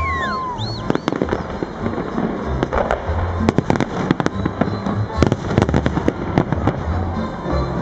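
Fireworks display with rapid bangs and crackling from bursting shells throughout, over music with a deep bass line; a few whistles glide in the first second.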